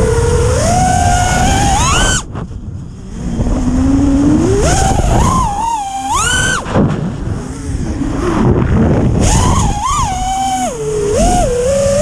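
FPV quadcopter's T-Motor brushless motors and propellers on a 6S battery: a loud whine that swoops up and down in pitch with the throttle, dropping away briefly about two seconds in before climbing again, over a rough rushing noise.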